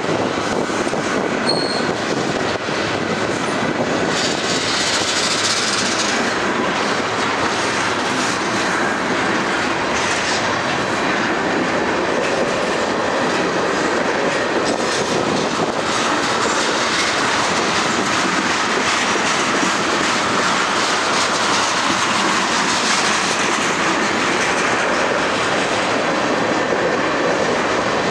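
Freight cars (tank cars, then covered hoppers) rolling past at close range: the steady, unbroken noise of steel wheels running on the rails.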